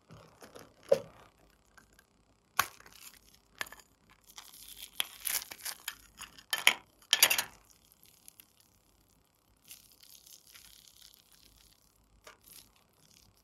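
A small plastic slime container clicking as it is handled and opened, then blue glitter slime crackling and tearing as it is pulled out and stretched, with several loud snaps in the middle and a fainter crackle later.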